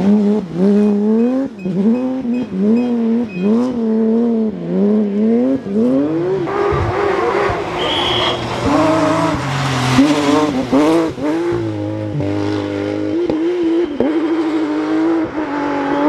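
Porsche 911 GT3 RS rally car's flat-six engine at racing revs, its note rising and dropping about once a second in the first half, then holding steadier with smaller swings.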